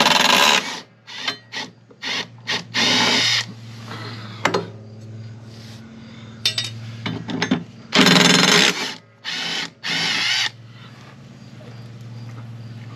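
Cordless power tool spinning off the blade bolts under a push mower's deck, in several short bursts with small metallic clicks between them as the blades and bolts come loose.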